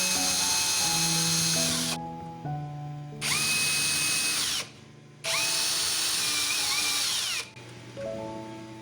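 Power drill driving out door-lock screws, running in three bursts, each whining up to speed and winding down as the trigger is released. Background music with changing notes underneath.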